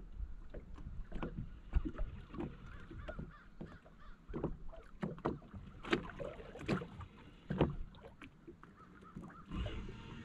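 Small waves lapping and slapping against the hull of a small fishing boat, an irregular run of light knocks and splashes.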